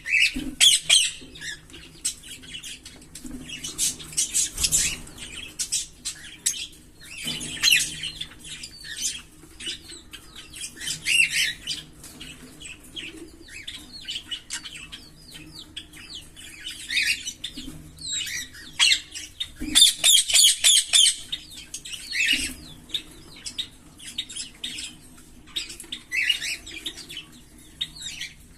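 A pair of green Fischer's lovebirds chirping and chattering, with runs of rapid shrill calls, the loudest about twenty seconds in, and quieter twittering in between.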